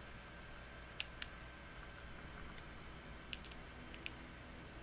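A handful of short, sharp clicks: two about a second in, a quick run of three around three and a half seconds, and two more near four seconds, over a faint steady hum.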